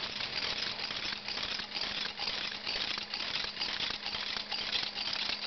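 Kinetic sculpture mechanism running: a dense, continuous rattle of many small clicks from its moving parts, over a faint steady hum.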